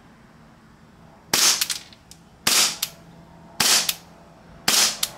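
KJ Works KP-19 gas blowback airsoft pistol firing four shots about a second apart, each a sharp crack with the slide's quick clack right after it. The gas magazine under test feeds and cycles the gun.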